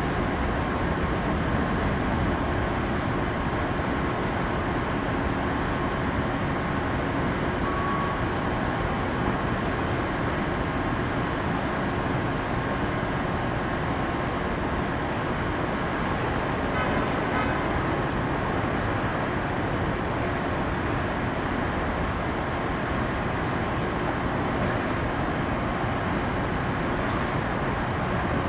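Steady jet engine noise from aircraft on the airport, with a faint steady whine over it.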